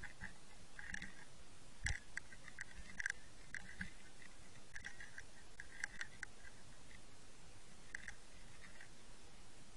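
Underwater recording by a baited fishing line: a steady hiss with scattered sharp clicks and ticks, in small clusters every second or so, the loudest about two and three seconds in, heard as roach and tench move and feed over the bottom.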